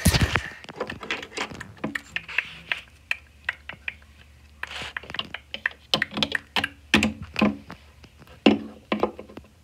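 An irregular run of light clicks and taps of small plastic toys and dolls being handled and set down.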